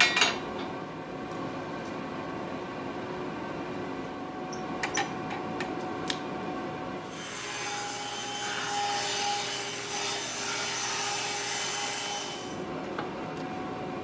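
Table saw running steadily, with a few knocks from a cedar board being handled. From about seven seconds in, the blade rips along the length of the board for about five seconds, and then the saw runs on free.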